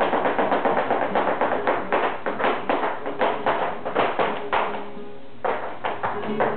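Flamenco dancer's shoes striking the floor in rapid footwork (zapateado), several taps a second, with a short break about five seconds in, over music.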